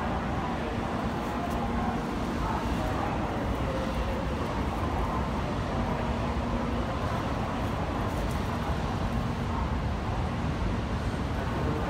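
Steady railway-station ambience: a continuous low rumble with a faint steady hum, and distant voices faintly underneath.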